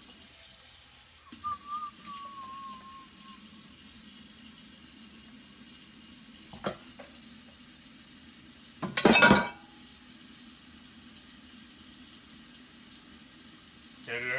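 Kitchen tap water running steadily into a sink during dishwashing. There is a brief wavering squeak about a second in, a couple of clinks, and a loud clatter of dishes about nine seconds in.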